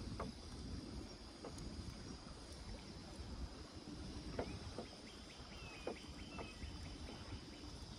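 Faint low wash of lake water and wind around a kayak, with a few light knocks and, from about five seconds in, a short run of faint ticks.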